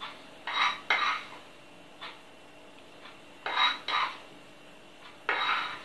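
A metal teaspoon scooping salt from a small container: several short scraping rasps in three groups, two, then one, then two, then one more near the end.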